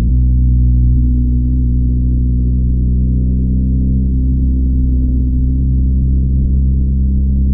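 BMW R1250GS's 1254 cc boxer twin engine with its stock exhaust, running under way at a steady speed: a steady, deep engine note that shifts slightly in pitch right at the start.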